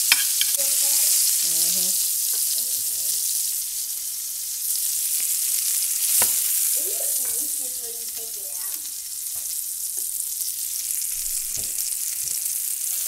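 Sausage pieces sizzling in hot fat in a frying pan, a steady crackling hiss throughout, with a sharp click about six seconds in.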